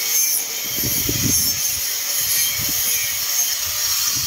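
Compressed-air paint spray gun hissing steadily as it sprays paint, with low rumbling at times underneath.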